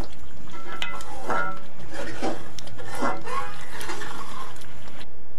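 A slotted metal spoon stirring and scraping thick masala in a metal pot, with repeated scrapes and knocks against the pan, a few ringing briefly. The masala has been fried down until the oil separates.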